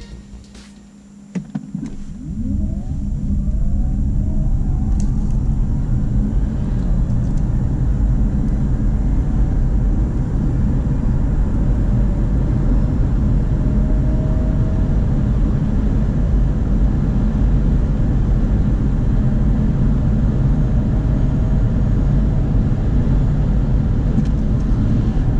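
Hyundai Nexo hydrogen fuel-cell electric SUV accelerating hard from a standstill, heard from inside the cabin. After a quiet second or two, a whine rises in pitch, then a steady rumble of road and wind noise builds as the car climbs past 120 km/h.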